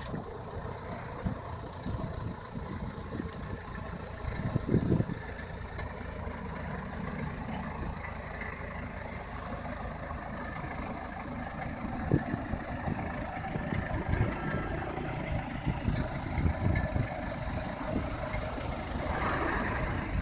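An engine running steadily, with a few brief low thumps over it about five seconds in and again in the last third.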